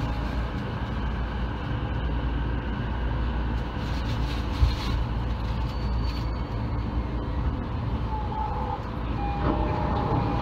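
Steady low hum of a commuter train standing at a station platform with its doors open, with a short thump about halfway through and a few brief steady tones near the end.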